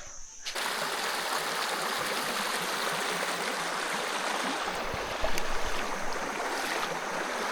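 Stream water rushing steadily, starting about half a second in.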